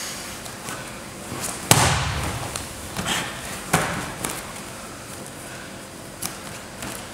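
Grapplers' bodies, hands and feet hitting a foam mat during a jiu-jitsu roll: a heavy thud about two seconds in, then several sharper slaps.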